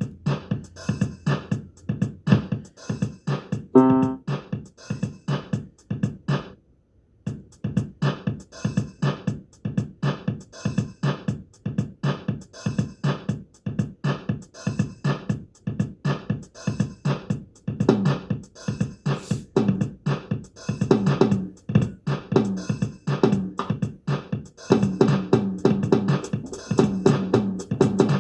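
Electronic keyboard played over its built-in drum-machine rhythm, a steady beat with chords and notes on top; the pattern stops for about a second near the quarter mark, then starts again.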